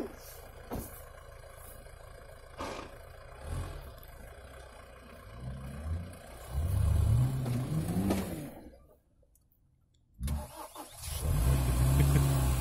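Off-road 4x4 engine revving, its pitch rising, after a quieter stretch with a few knocks. The sound cuts out abruptly for about a second, then the engine comes back in sputtering bursts and settles into a loud, steady run.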